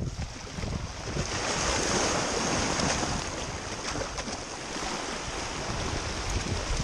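Sea waves surging and washing over jetty rocks: a broad rushing hiss that swells about a second in and peaks a second later, then carries on more evenly. Wind rumbles on the microphone underneath.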